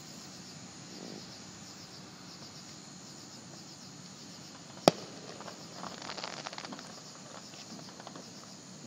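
Crickets chirping steadily. About five seconds in comes a single sharp bang of a firework, followed by a second or two of crackling pops.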